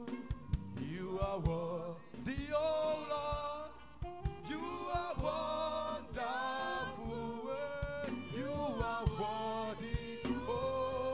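A church choir singing a gospel praise song with a lead singer on a microphone, over a steady drum beat.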